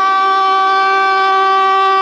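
Air raid siren sounding loudly on one steady, held pitch.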